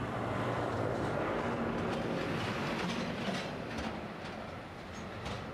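Boeing 757 jet engines on landing approach, a steady rushing rumble as the aircraft passes low that eases slightly after about four seconds, with a few faint clicks near the end.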